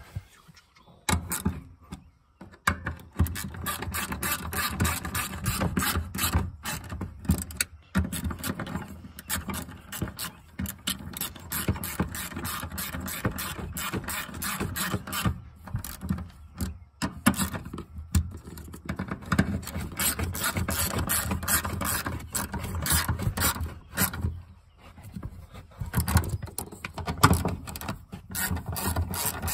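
Hand ratchet clicking rapidly in long runs with short pauses, as the bolts holding the fuel pump assembly to the fuel tank are run down and tightened.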